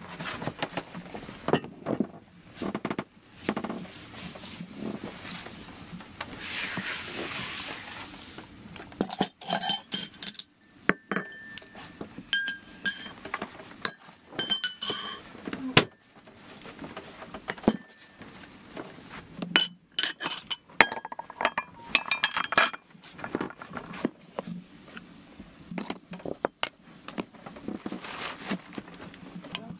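Dishes, cups and glass jars clinking and knocking against each other and the table as a table is set, in many quick irregular clinks with short ringing tones.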